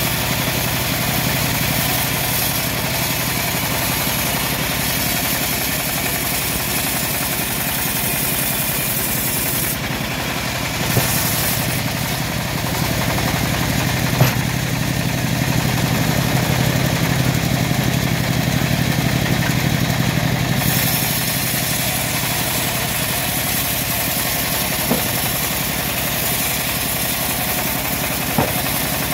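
Homemade bandsaw mill running steadily as its blade cuts through a teak log, a continuous machine drone that grows heavier for several seconds in the middle. A few short sharp knocks stand out over it.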